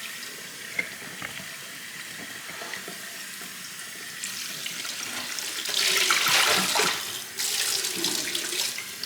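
Kitchen tap running water into the sink, a steady hiss that grows louder and fuller about six seconds in.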